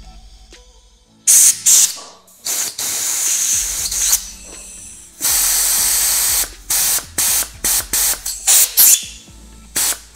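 Compressed-air blow gun blasting air through a turbo boost control solenoid, hissing in short bursts and two longer blows, then a quick run of short puffs near the end. The air is moving the solenoid's valve, which the mechanic calls a good sign.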